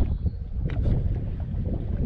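Wind buffeting the microphone as a low, uneven rumble. Two short clicks come a little under a second in.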